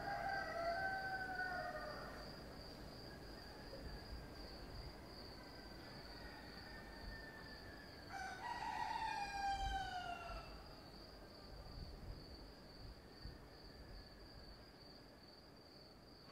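Cockerels crowing at dawn: one crow at the start and another about eight seconds in, each falling in pitch at the end. Under them runs the steady, pulsing high drone of cicadas.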